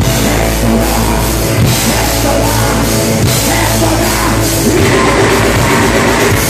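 Rock band playing live and loud: drum kit, guitars and a singer on a microphone.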